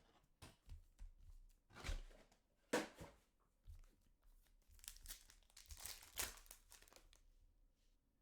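Packaging of a sealed trading-card box being torn open: wrapper tearing and crinkling in a few separate rustles, the loudest about two and three seconds in and again around five to six seconds in.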